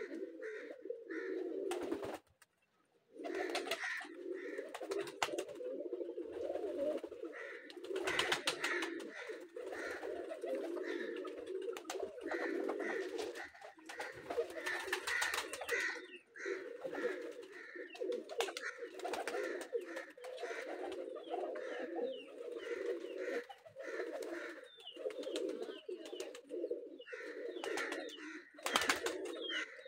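A flock of domestic pigeons cooing continuously, many overlapping calls, with scattered sharp clicks. The sound cuts out briefly about two seconds in.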